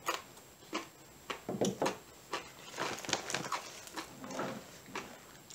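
A person chewing a crunchy tortilla chip dipped in salsa, close to the microphone: an uneven run of crisp crunches and mouth clicks.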